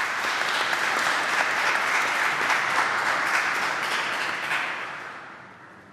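Audience applauding steadily, the applause dying away over the last second and a half.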